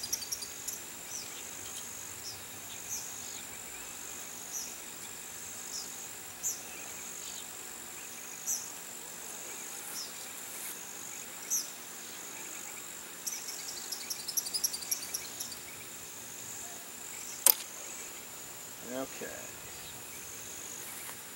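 A steady, high-pitched drone of insects, with short chirps every couple of seconds. About three-quarters of the way in comes a single sharp snap, the loudest sound: the rubber catapult releasing the glider at launch.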